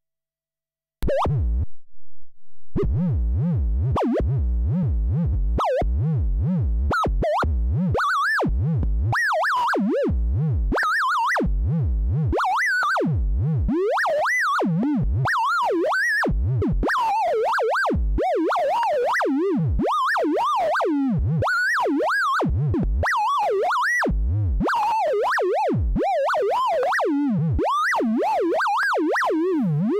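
Modular synthesizer oscillator whose pitch is driven by three LFO sine waves mixed and rectified in an Earwig rectifying mixer. It makes a bouncing, warbling electronic tone that swoops up and down in pitch, starting about a second in after a moment of silence. It stays low at first, then climbs into higher, more tangled pitch curves after several seconds.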